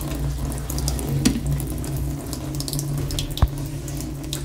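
Water running from a stainless steel kitchen faucet into a stainless steel sink as a glass and hands are rinsed under it, with splashing and one sharp knock about three and a half seconds in. The flow is somewhat weak.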